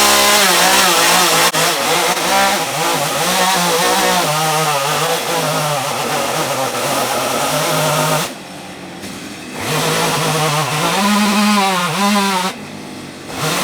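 Two-stroke chainsaw running at high revs, its pitch wavering as it works, with the throttle let off briefly twice, about eight seconds in and near the end.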